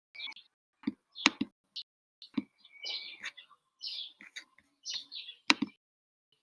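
A bird chirping in short, high calls with a brief whistle in the middle, mixed with a few sharp clicks.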